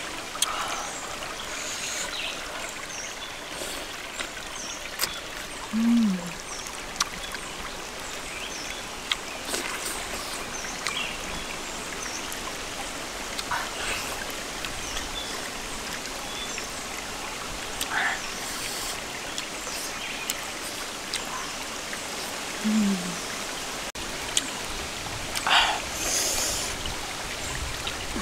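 Shallow rocky stream trickling and flowing steadily, with scattered small clicks of food being handled. Twice, well apart, a short falling hum of a person's voice.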